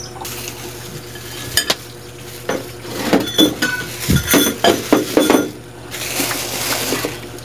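A ceramic bowl and a steel fork clinking and knocking as they are set down on a table, a quick run of sharp clinks. Near the end, a plastic bag rustles.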